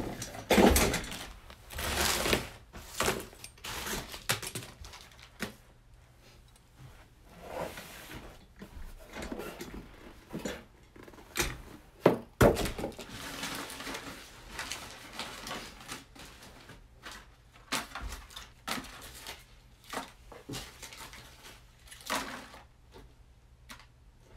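Scattered knocks, thumps and rustling from things being handled in a small room, irregular and unpitched, with the sharpest knocks about two seconds in and around the middle.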